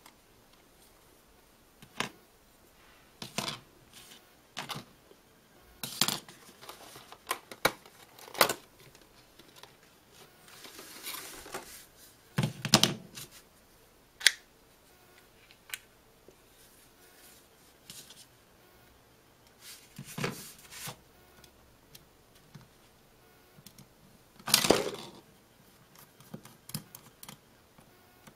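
Hands handling small plastic car key parts: scattered clicks, snaps and knocks of the remote's shell and a flip-key housing being fitted and pried, with a stretch of plastic rustling and a few louder knocks.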